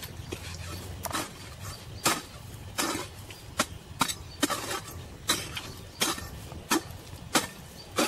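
A hoe blade striking into packed earth again and again as a hole is dug, about eleven dull chops at a little more than one a second, somewhat unevenly spaced.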